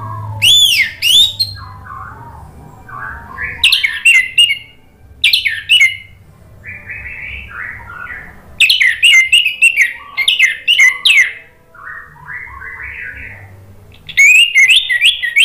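Orange-headed thrush singing: loud, varied phrases of sweeping whistles and rapid notes, with softer, lower warbling between them. A faint low hum runs underneath.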